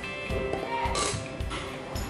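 Background music with a steady beat, with a brief scatter of light mechanical clicks and a short bright rattle about a second in.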